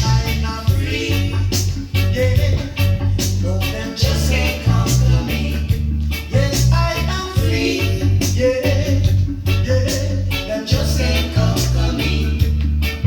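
Reggae music with a heavy bass line, a steady drum beat and a singing voice.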